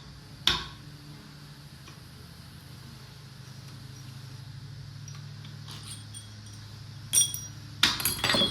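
Metal-on-metal taps and clinks from a 6.5 L turbo diesel's main bearing cap and bearing shell being worked loose from the block: one sharp ringing tap about half a second in, then several clinks near the end. A low steady hum sits underneath.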